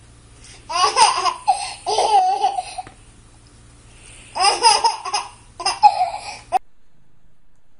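A baby laughing in three bouts of high, wavering giggles, cutting off abruptly near the end.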